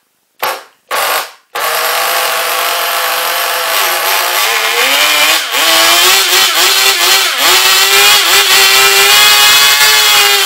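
Small nitro (glow) engine of a 1/16-scale RC car: two short bursts as it is cranked, then it catches about a second and a half in and runs. From about four seconds in it revs up and down over and over with the throttle.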